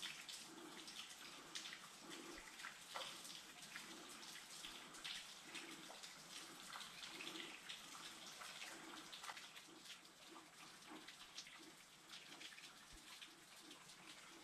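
Near silence: faint forest ambience with scattered soft ticks.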